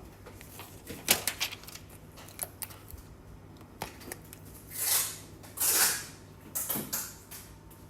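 Handling noise from phone replacement screens being moved about: a few sharp clicks and taps, then three short rustling swishes.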